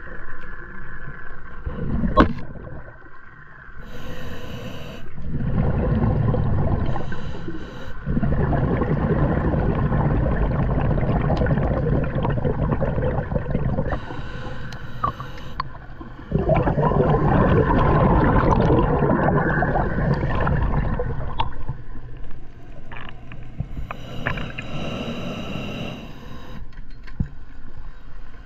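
Scuba diver breathing through a regulator underwater: long bubbling exhalations, each followed by a short hissing inhalation, repeating every several seconds.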